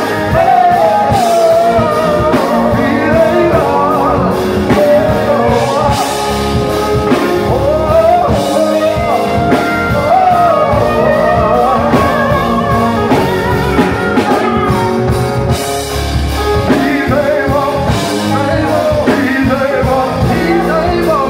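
Male vocalist singing into a microphone with a live gospel-style band behind him: pedal steel guitar, keyboard, bass and drum kit.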